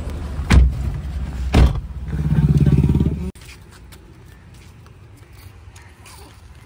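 Moving car's cabin rumble from engine and road, with two sharp thumps about half a second and a second and a half in, and a louder droning swell from about two seconds in that cuts off abruptly just after three seconds. Quieter outdoor background follows.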